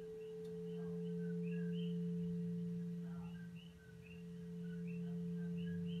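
Frosted glass singing bowl tuned to 172 Hz sounding a sustained, steady low hum with a fainter higher overtone. The loudness swells and fades, dipping briefly a little after halfway.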